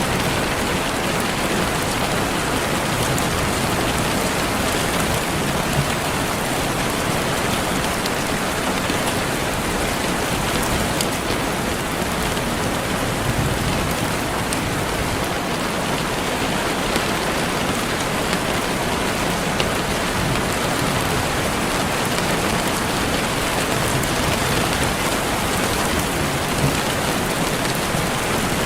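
Steady rainfall, an even hiss with scattered drop ticks on a surface.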